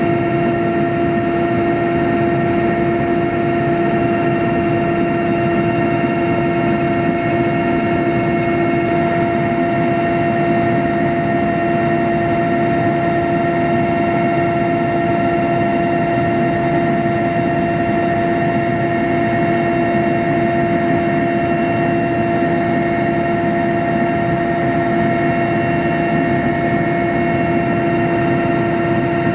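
Aircraft in flight, heard from inside: a loud, steady engine drone with a constant pitched whine running over it, unchanging throughout.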